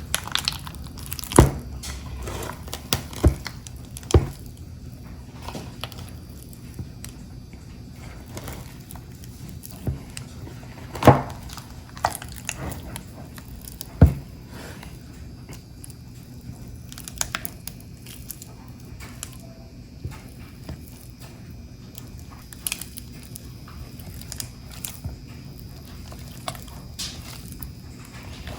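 Butter and cream cheese being mixed and pressed with a utensil, making soft sticky sounds broken by irregular sharp knocks, the loudest about 11 seconds in.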